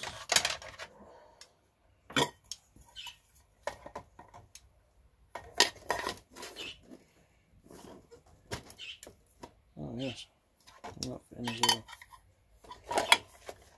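Metal camping cook-set pots, lids and cutlery being handled and nested together, giving irregular clinks and knocks of metal on metal.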